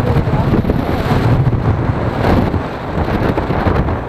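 Loud, steady wind buffeting on the microphone while riding a motor scooter at speed, with road and engine noise mixed in underneath.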